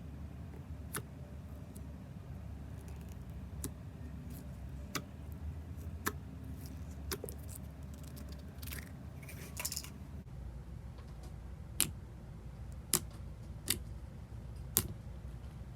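Frosted tangyuan-style slime being squeezed and poked, giving scattered sharp pops and clicks over a steady low hum, with the loudest pops coming in a cluster near the end.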